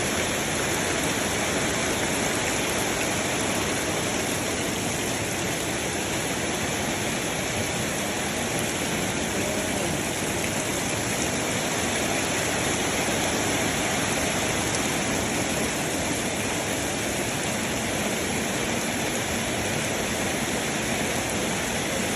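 Heavy rain pouring down, a steady dense hiss of falling water.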